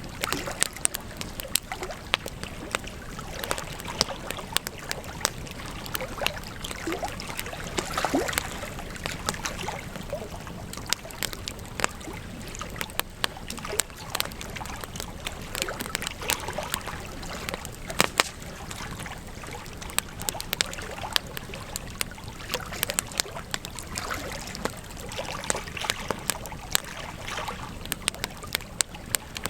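Wood campfire burning, crackling with frequent sharp pops and snaps over a steady hiss.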